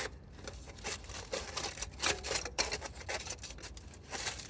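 Adjustable oil filter wrench being worked on a motorcycle's spin-on oil filter: irregular metal clicks and scraping as the tool grips and slips on the filter can.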